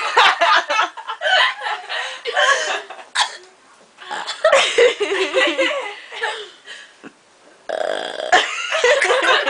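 A person burping loudly, three long drawn-out burps with short pauses between them, with some laughter mixed in.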